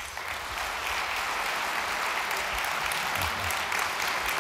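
Large audience applauding, the clapping building up over the first second and then holding steady.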